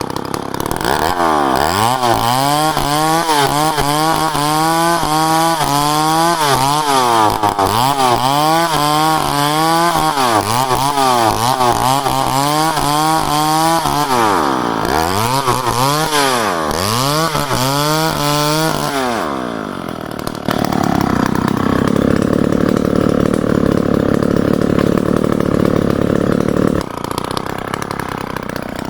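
Chainsaw cutting timber into lumber. Its engine pitch rises and falls over and over, about twice a second, as the chain bites into the wood. After about twenty seconds it settles into a steadier, rougher drone, which drops away near the end.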